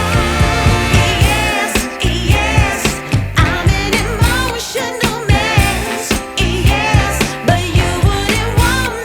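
Music with singing over a steady beat and bass line.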